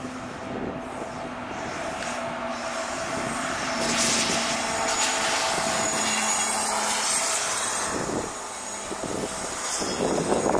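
Passenger coaches of the Seshadri Express rolling past, a steady rumble of wheels on rails that grows louder about four seconds in, with sharp clacks of wheels over rail joints near the end.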